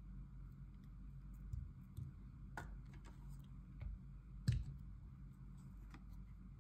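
Handling sounds of a stainless steel soap dispenser and soap dish on a marble tabletop: scattered light clicks and taps, with one sharper knock about four and a half seconds in.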